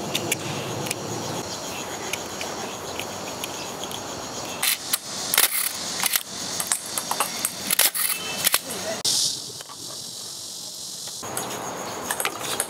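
Clicks and knocks of a large-format view camera being handled as a brass Dallmeyer Petzval lens is fitted to its lens board, with a few sharper clicks around five seconds in, over a steady outdoor background hiss.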